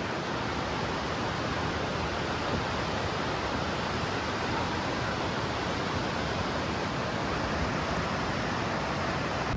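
Steady rushing of water, an even unbroken hiss and rumble, that cuts off abruptly at the end.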